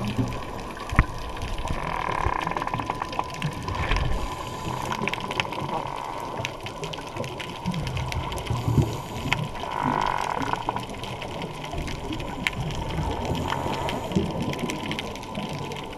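Underwater sound picked up by a GoPro 3+ through its waterproof housing: muffled water noise and bubbling, with scattered clicks and low thumps, and a brief hiss every four to five seconds.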